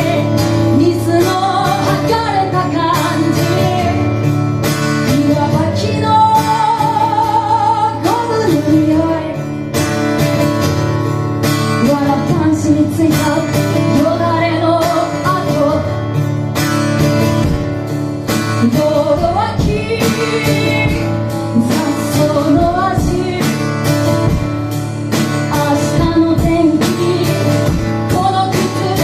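Live band music: a woman sings over strummed guitar and drums.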